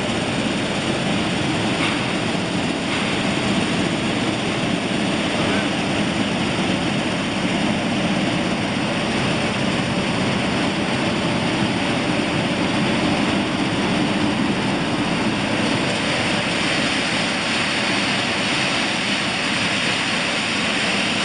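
Pumpkin seed shelling and hulling machine line running: a loud, steady, even noise of the machinery with seeds streaming through it.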